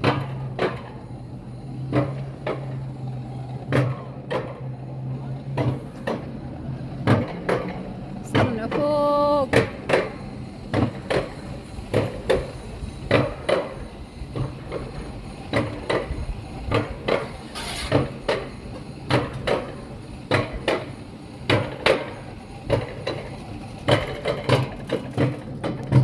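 Alpine coaster sled being hauled up the lift section of its steel rail track, clacking rhythmically about twice a second, over a low hum for the first few seconds.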